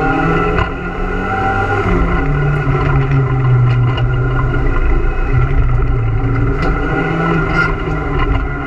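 Renault Super 5 GT Turbo's turbocharged four-cylinder engine under hard acceleration, heard from inside the cabin. Its pitch rises and drops in steps as the driver changes gear, over steady road noise and small rattles from the stripped interior.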